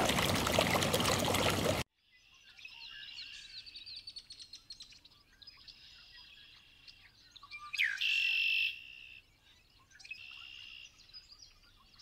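A small stream running over rocks for the first couple of seconds, then cut off abruptly. After it, wild birds singing: short, high chirping and trilling phrases with pauses between them, the loudest about eight seconds in.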